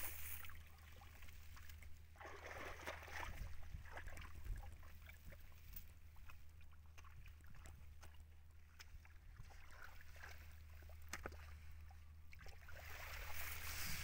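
Hands digging in wet mud and rice straw: faint squelching and sloshing with scattered small clicks and rustles, over a low steady hum.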